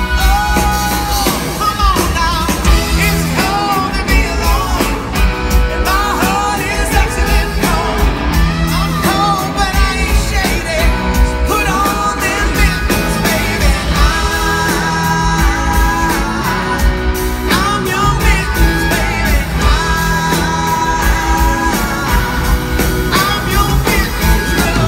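Live rock band playing a song, a male lead singer's voice over drums, bass and electric guitars, heard from the audience in a concert hall.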